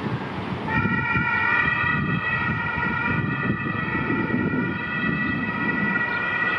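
Ambulance siren switched on about a second in and sounding steadily as the ambulance leaves on an emergency call, over low traffic and engine rumble.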